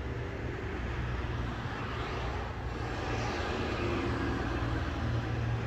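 Steady low engine drone, a little louder in the second half, with a faint rising and falling whine about two to three seconds in.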